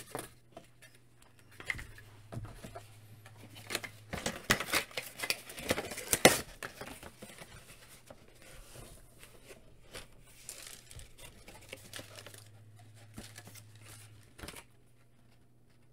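Cardboard toy box and packaging being handled and cleared off a table: rustling, scraping and light knocks, with a loud, dense spell of rustling about four to six seconds in, then lighter handling that stops near the end.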